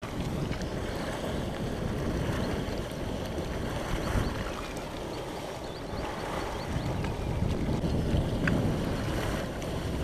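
Thermal spring water boiling up from underground and gushing into a shallow pool, a steady churning, splashing rush of water.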